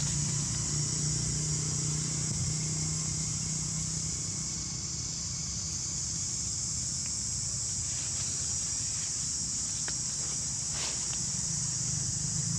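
Steady high-pitched chorus of insects, over a low steady hum. A few faint rustles or ticks come late on.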